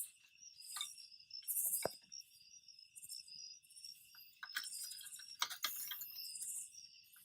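Crickets chirping steadily, with a few short sharp clicks, about two seconds in and twice near five and a half seconds.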